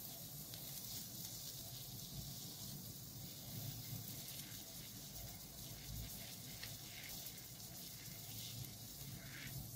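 Faint sizzling with a few soft crackles from a hot soldering iron tip held in WYLIE WL-860 tip refresher paste, the paste reacting with the heavily oxidized tip.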